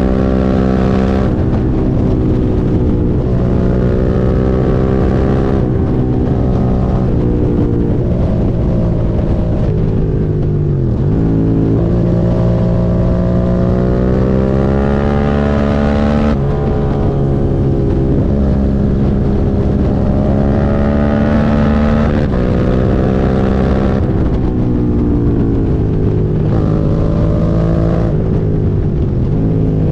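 Suzuki SV650's 90-degree V-twin engine pulling hard under way, its pitch climbing with speed and dropping in steps at gear changes. It falls away and picks up again around eleven seconds in, as when slowing and accelerating again.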